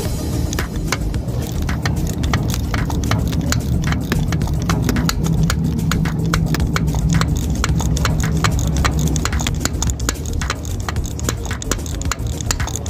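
Hand ratchet with an extension and swivel joint clicking in quick, even strokes as it turns a spark plug on a Corvette engine, over a steady low hum.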